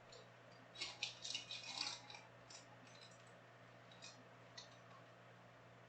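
Trading cards and their packaging being handled: a quick cluster of light clicks and rustles about a second in, then a few scattered soft taps.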